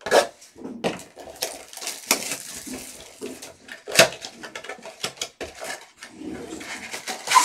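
Cardboard trading-card boxes and foil card packs handled on a tabletop: a run of taps, knocks and rustles, with a sharp knock about four seconds in and another near the end.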